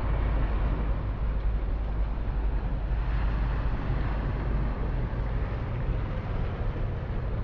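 Wind buffeting the microphone: a steady low rumble with a fainter hiss over it.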